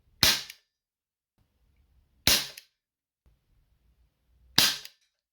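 Colt Python CO2 airsoft revolver, a non-blowback model, firing three sharp shots about two seconds apart, each a short crack of gas release.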